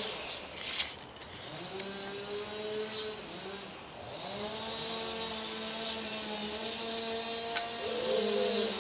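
A chainsaw and a wood chipper running in the background: a small engine revs up and holds at a steady high pitch several times. There is a sharp click about a second in.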